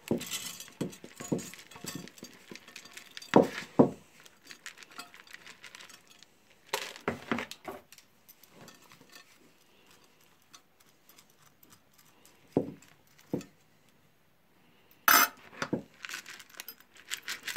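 Raw shredded cabbage and carrot mixed with dry rice tipped from a plastic bowl into a glass baking dish: scattered clinks and knocks on the glass, with the dry rice grains rattling. Several louder knocks come in clusters, the sharpest near the end.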